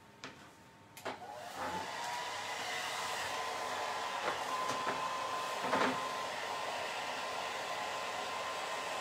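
Handheld hot-air dryer switched on about a second in, its motor spinning up with a rising whine and then blowing steadily to dry the freshly painted craft piece. A few light knocks of things being handled on the table.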